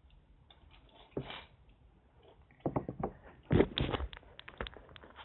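Handling noises: a short rustle about a second in, then a run of sharp clicks and knocks from about two and a half seconds on, loudest around the middle.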